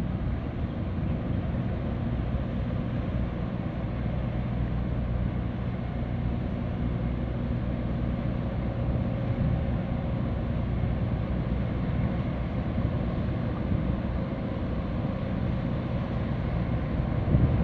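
Harbour tug's diesel engines running steadily at work, with propeller wash churning the water: a constant low drone. A gust of wind hits the microphone near the end.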